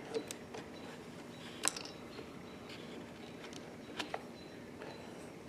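Small clicks and taps of a screwdriver and fingers working at a Stihl BG 55 leaf blower's carburetor while the high-speed adjustment screw is backed out, with the engine off. Two sharper clicks stand out, about one and a half seconds in and again about four seconds in.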